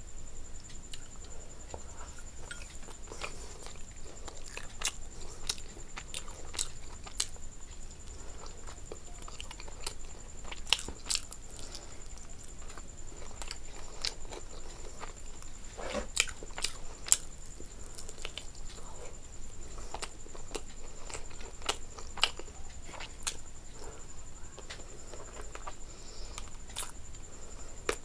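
Person chewing and biting food, with irregular sharp crunches and mouth clicks.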